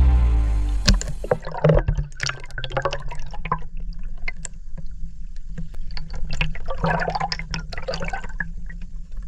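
Water splashing and dripping around a paddle craft, with many small irregular clicks and knocks.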